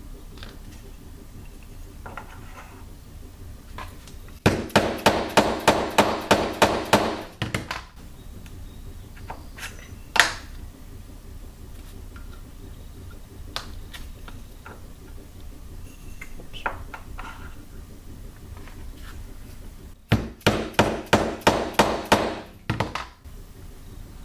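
Mallet blows on a wooden dowel, ramming bentonite clay down into a PVC rocket motor tube. They come in two quick runs of about ten and eight blows, roughly three a second. A single sharp tap falls in between.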